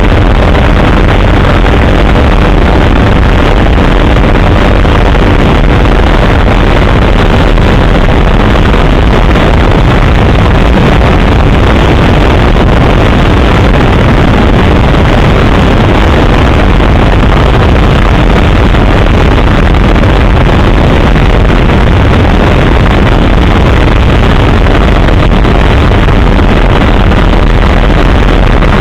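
Helicopter in flight heard from aboard: the rotor and engine run loud and steady throughout.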